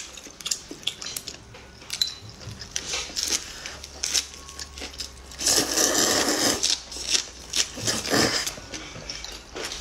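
Close-up eating sounds: wet chewing and mouth clicks, with sweet-potato starch noodles slurped in a long slurp about halfway through and a shorter one a little later.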